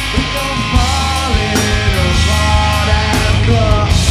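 Live rock band playing loud, heavy rock with drums, electric bass and electric guitar, and a male vocalist singing over it.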